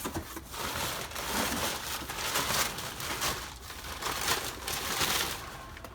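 Cardboard box flaps and paper wrapping rustling and crinkling in irregular bursts as a box is opened and rummaged through by hand.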